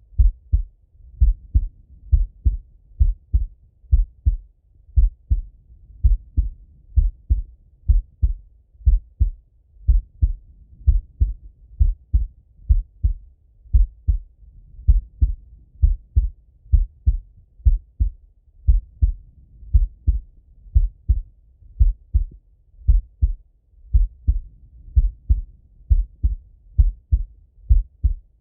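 A man's resting heartbeat heard through a Littmann stethoscope: a slow, steady rhythm of paired low thumps, the lub-dub of the heart valves closing, with a soft muffled rumble between beats.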